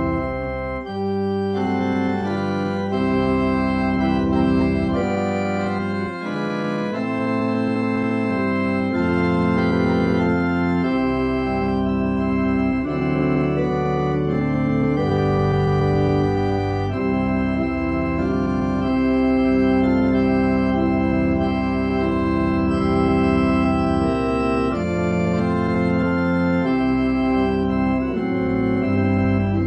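Organ playing a hymn tune in held chords over a sustained bass, the chords changing every second or two.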